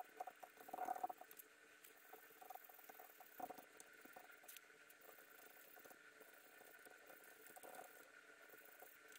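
Faint dabbing and scraping of a paintbrush laying black paint onto a wooden frame, loudest about a second in, with one light knock about three and a half seconds in.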